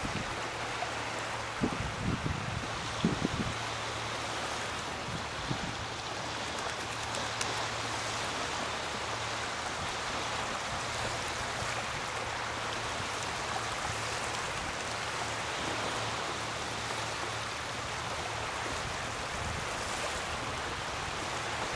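Steady rush of shallow water rippling over a pebbly shoreline, with a few low thumps in the first few seconds.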